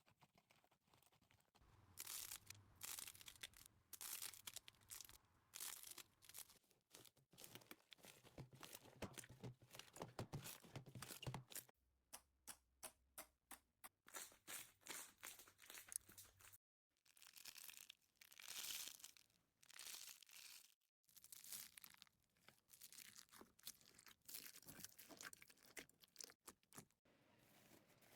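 Slime being squeezed and stretched by hand, giving repeated bursts of crackling and sharp popping clicks with short pauses between handfuls.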